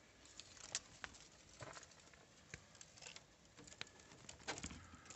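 Faint, scattered light clicks and rustles, one or two a second, over near silence.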